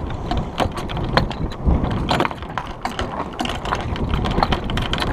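Irregular clicks and knocks from a small sailboat's rigging and deck fittings while its sails are eased and luffing, with wind rumbling on the microphone.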